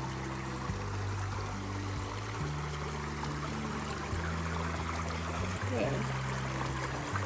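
Background music with slow, sustained low notes that change every second or two, over the steady rush of a stream.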